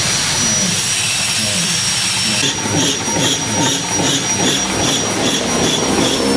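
Belt-driven piston air compressor with an electric motor running, brought up to speed slowly by an inverter. About two and a half seconds in, a rhythmic chuffing of a little under three beats a second sets in over the steady running noise.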